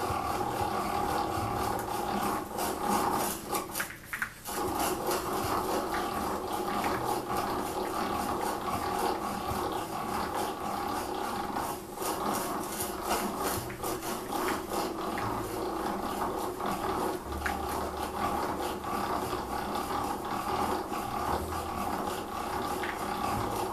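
Millers Falls No. 12 breast drill being hand-cranked, its gears whirring steadily as an 11/16-inch square-shank twist drill bores through pine. The cranking pauses briefly about four seconds in.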